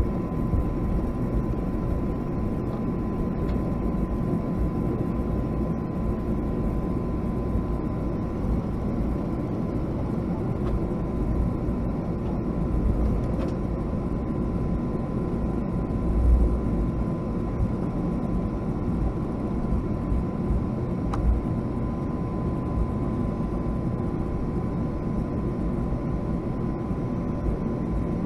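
Steady cabin noise inside a Boeing 757-200 with its engines running, heaviest in the low end, with a faint steady high tone.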